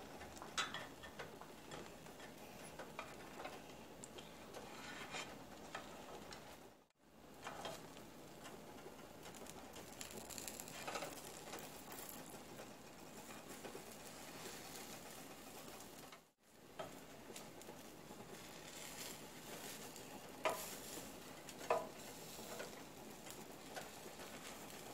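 Thin egg sheet sizzling faintly in a nonstick frying pan as it is rolled up, with a few light clicks and taps of a plastic spatula and chopsticks against the pan. The sound cuts out briefly twice.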